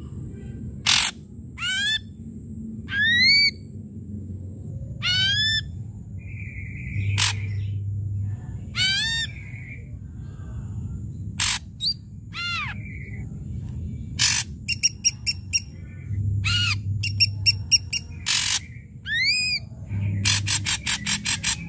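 Ashy drongo singing: a string of loud, upward-sweeping whistled calls mixed with sharp clicks, and fast stuttering rattles about two-thirds of the way through and again near the end.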